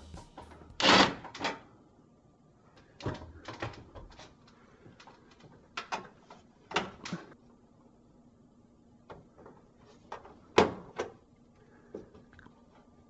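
A short burst from a cordless impact driver backing out a duct screw about a second in, then scattered knocks and rattles of galvanized sheet-metal duct pipe being worked apart by hand.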